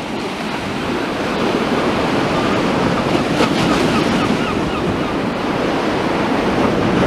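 Sea surf washing steadily onto a sandy beach, with wind buffeting the microphone.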